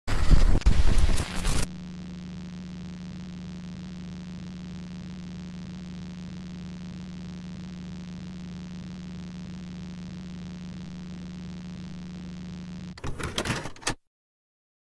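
Loud crackling tape-glitch static for about a second and a half, then a steady electrical hum with a faint hiss, broken near the end by another short burst of static before it cuts off.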